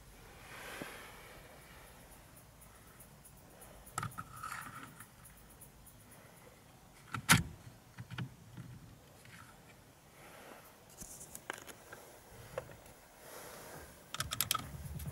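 Scattered clicks, taps and small rattles of car parts and hand tools being handled. The loudest is a single sharp click about seven seconds in, and a quick run of clicks comes near the end.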